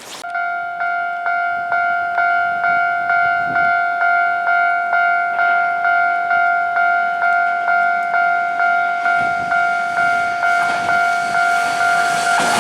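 Japanese railway level crossing warning bell starting up and ringing at a steady pace of about two strokes a second. A train rumble grows in under it over the last few seconds as the train approaches.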